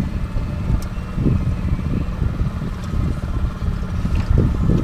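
Fishing boat's motor running steadily at slow trolling speed, a low rumble with wind buffeting the microphone.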